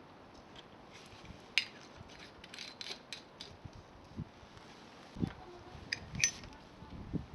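Scattered light clinks and scrapes of hard objects being handled, with a few soft knocks in the second half.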